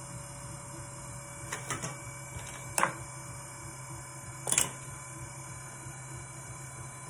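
Electric pottery wheel motor humming steadily, with a few sharp clacks of hand tools being handled as a metal rib is put down and a needle tool picked up. The loudest clack comes about three seconds in and another about four and a half seconds in.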